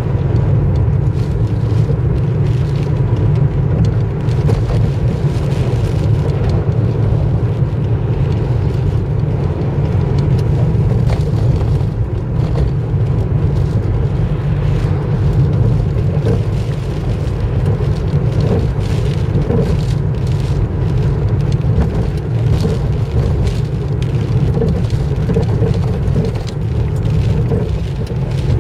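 Steady low rumble of a car driving on a wet road, engine and tyre noise heard from inside the cabin.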